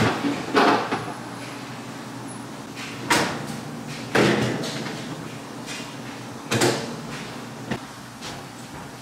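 Knocks and bumps of a side-by-side refrigerator's shelves, bins and doors being handled while its inside is wiped clean, about five sharp ones, loudest a little after three and four seconds in. A steady low hum runs underneath.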